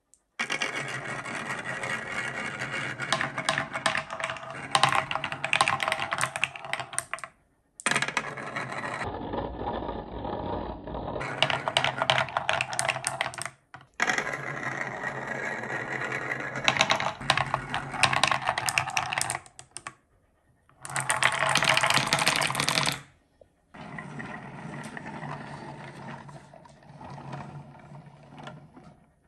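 Many glass marbles rolling and clattering down a wooden marble-run track with a wavy groove: a dense, fast stream of clicks and rattles. It comes in several runs broken by short silences, and the last run is quieter.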